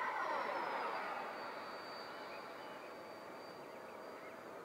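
Freewing 90 mm F-18 RC jet's electric ducted fan whining as it flies past, its pitch dropping sharply during the first second as it passes, then a fainter steady high whine as it draws away.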